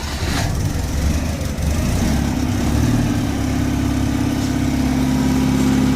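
Citroën Acadiane's air-cooled flat-twin engine running just after starting: uneven for the first couple of seconds, then settling into a steady, even idle about two seconds in.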